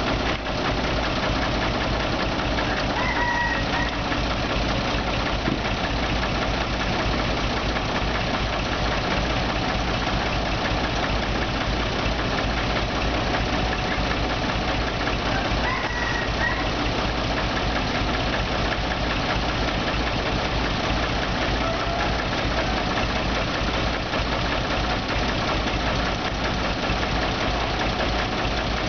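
Diesel engines running steadily: a Kubota U35 mini excavator at work and a dump truck idling. A rooster crows a few times, about three seconds in and again around sixteen seconds.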